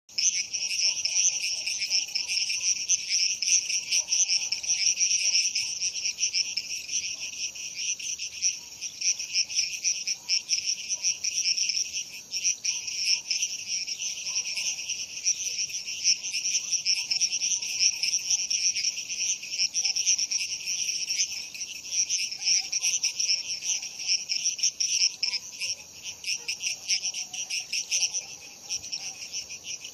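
Night chorus of crickets: a dense, continuous high-pitched chirping, with fainter lower frog calls underneath.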